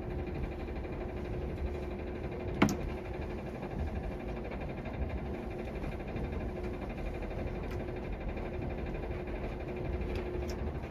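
Steady low mechanical hum with a faint steady tone, broken by one sharp click about two and a half seconds in.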